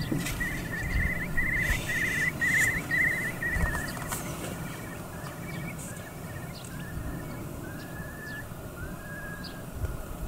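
Eurasian curlew calling: a run of rapid bubbling, warbling notes in the first few seconds, then a string of smoother, fainter whistled notes that trail off.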